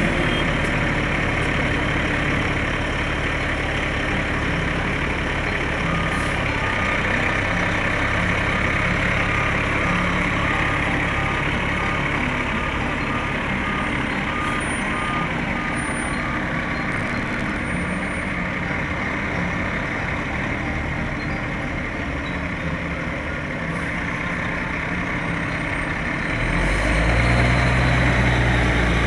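Diesel engine of a tractor-drawn aerial ladder fire truck running as the truck pulls away, with a steady mechanical din. A repeated electronic beeping sounds through the middle stretch. The engine's low rumble grows louder near the end as the truck passes close by.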